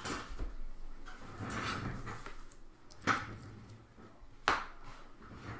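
Handling of trading card packs and boxes on a table: rustling, with two sharp taps about three and four and a half seconds in.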